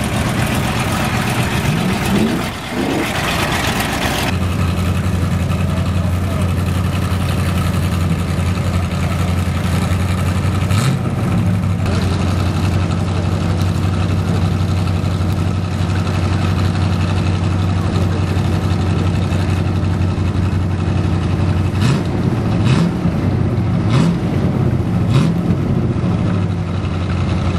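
Modified off-road 4x4 engines idling close by in a steady low drone, with a rev that rises and falls about two seconds in and several short blips of the throttle near the end.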